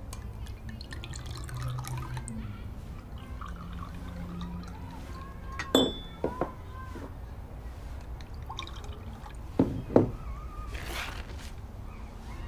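Cherry liqueur being poured into small glasses, with sharp glass clinks about six seconds in, the first ringing briefly, and two louder knocks near ten seconds as glass or bottle is set down.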